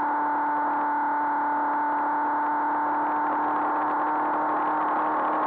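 Honda CBR500R's parallel-twin engine running steadily at cruising speed, a constant drone over a steady rush of noise.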